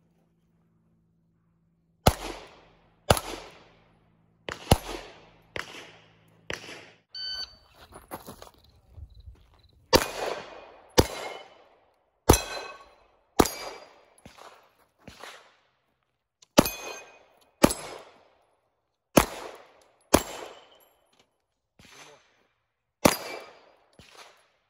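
Glock 19 9 mm pistol firing a long string of about twenty shots at steel targets, roughly one a second and starting about two seconds in, with the steel plates ringing after many of the hits.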